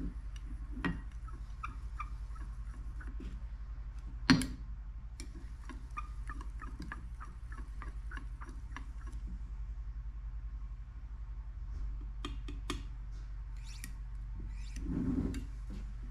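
Metal stirring rod clinking and scraping against a glass measuring cup as liquid soft-plastic (plastisol) is stirred: runs of light ticks, three or four a second, with one sharper knock about four seconds in. A few more clicks and a duller knock follow near the end, all over a low steady hum.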